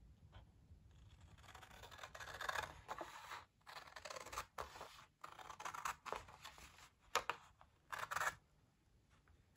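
Scissors cutting through a sheet of designer paper along a score line: a run of cuts with short breaks, stopping about a second before the end.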